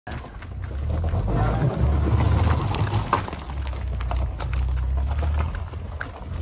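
Car crawling over a deeply potholed dirt road: a low engine and tyre rumble, with stones and gravel knocking and crunching under the wheels.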